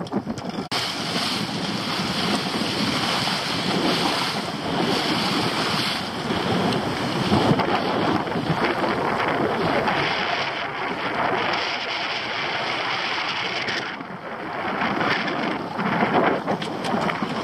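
Steady rush of wind on the microphone and sea water washing along the hull of a small fishing boat at sea, dipping briefly about a second in.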